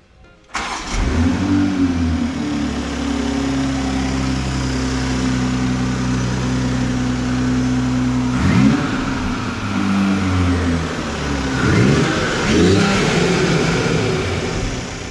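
A90 Toyota GR Supra's turbocharged engine starting about half a second in and settling into a steady idle, then revved briefly once around the middle and a couple of times near the end. It breathes through an open-cone AWE carbon intake with an exposed filter.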